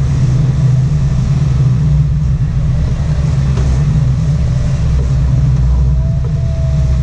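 Sport-fishing boat's engines running steadily while trolling, a loud low rumble with a hiss of wind and churning wake over it. A faint thin whine joins about six seconds in.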